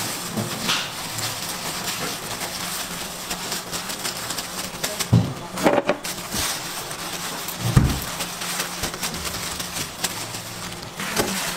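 Moldable sand being cut and broken apart by gloved hands in a plastic bin: a soft, steady crumbling and crunching of grains. A few louder thumps come about halfway through as slabs fall.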